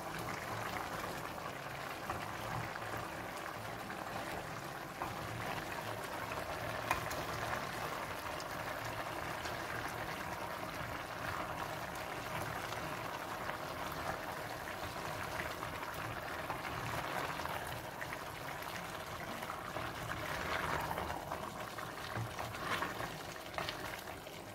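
Chicken and vegetables simmering in a stainless steel pot, a steady bubbling hiss, while a plastic spoon stirs curry paste through them, with a few light knocks of the spoon against the pot.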